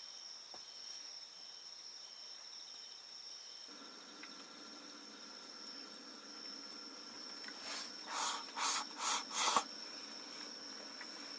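Insects chirring steadily at one high pitch in the night quiet, with a faint low hum joining about four seconds in. Near the end come about five short scraping rustles in quick succession.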